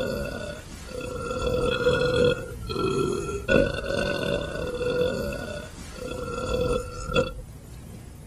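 A man's long, drawn-out belch that goes on in several surges with short breaks and stops abruptly about seven seconds in.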